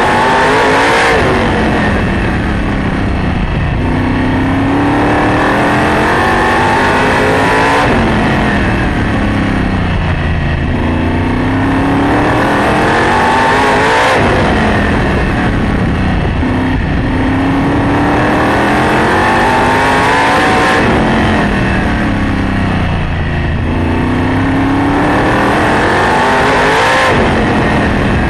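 Sprint car engine heard from inside the cockpit at racing speed. It climbs in pitch down each straightaway, then drops sharply as the driver lifts for each turn, about every six to seven seconds.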